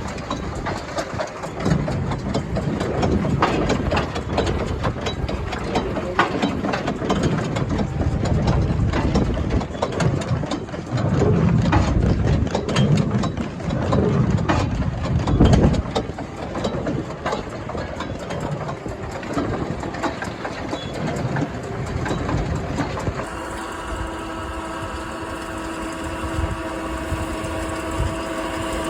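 A 2015 New Holland Big Baler 340 large square baler running off its tractor's PTO, with a busy mechanical clatter of clicks and knocks over the tractor engine. About 23 seconds in, the sound changes abruptly to a steady, even-pitched engine hum.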